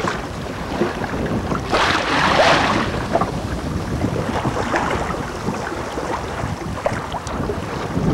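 Wind rushing over the microphone and the wash of waves on the open sea around a small sailboat, with a stronger gust about two seconds in.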